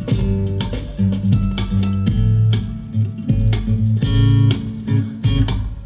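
Dance music with a heavy bass line and sharp drum hits, briefly dropping out near the end.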